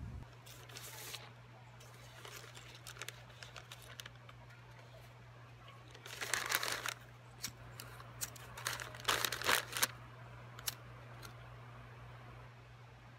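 Sheets of lined paper being crumpled and torn by hand: scattered small crinkles, with two louder rustling bursts about six and nine seconds in, over a steady low hum.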